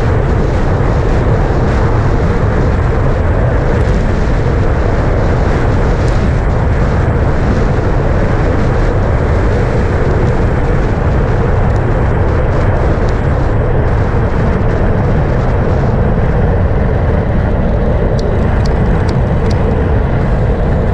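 Loud, steady wind roar buffeting the handlebar-mounted camera's microphone as a road bike descends at about 40 mph, with a few faint clicks near the end.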